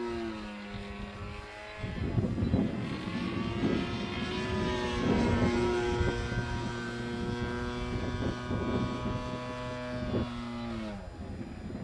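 Zero fighter plane's propeller engine flying overhead, a steady droning note whose pitch drops shortly after the start and again about a second before the end. Gusty wind buffets the microphone from about two seconds in.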